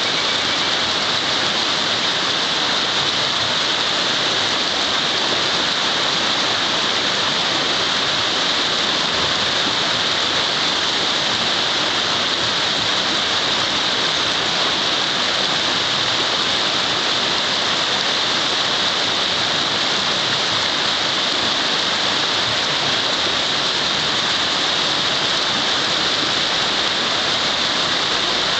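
Fast river riffle rushing over rocks: a steady, even hiss of white water.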